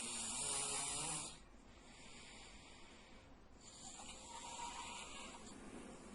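A man snoring in his sleep: a loud snore over the first second or so, then a softer one of nearly two seconds beginning about four seconds in.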